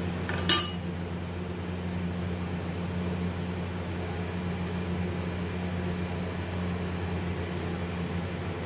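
A single short metallic clink about half a second in, as of a spoon striking a dish, then a steady low electrical hum with faint hiss.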